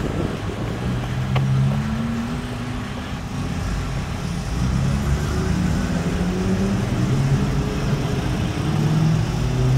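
Twin-turbo Lamborghini Huracán V10 engine running while driving, its pitch rising and falling several times as it accelerates and eases off.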